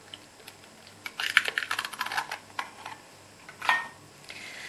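Rapid light clicks and taps as an egg and its shell are handled over a stand mixer's stainless steel bowl while the mixer is stopped. Near the end comes one sharper clink with a short ring.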